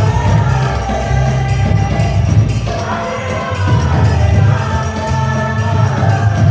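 Kirtan: a group chanting a devotional song together to steady, loud music, with a low drone and drum underneath and a regular jingling beat on top.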